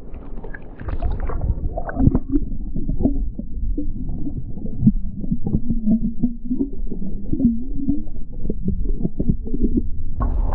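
Muffled underwater sound from a submerged microphone: water sloshing and gurgling with many dull knocks, and a wavering low hum through the middle.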